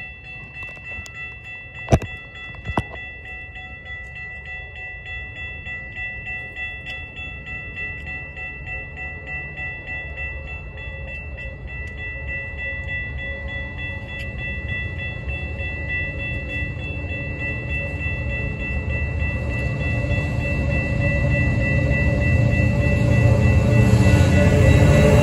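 Approaching freight train led by diesel locomotive WAMX 6026: a low rumble grows steadily louder, over a steady high-pitched ringing. Two sharp knocks sound about two seconds in.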